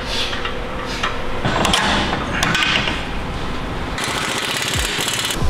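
Impact wrench rattling in short bursts on a suspension bolt, with a longer run about four seconds in that cuts off sharply about a second later.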